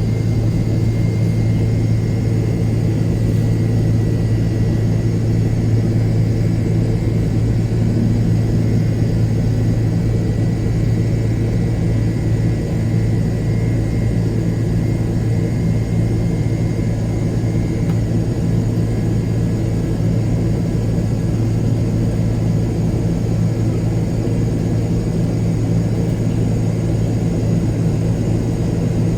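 Jet airliner engines and airflow making a loud, steady low drone, with a faint high whine fading out about two-thirds of the way through.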